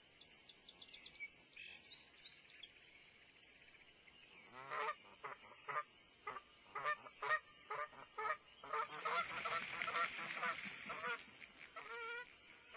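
Geese honking in a rapid, excited series that starts about four seconds in and grows loud and dense before thinning out near the end, an alarm outburst from frightened geese. Under it, spring peepers chirp faintly.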